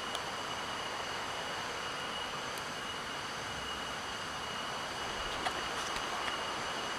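Steady forest ambience: a constant high-pitched insect drone over an even hiss, with a few faint clicks a little after the middle.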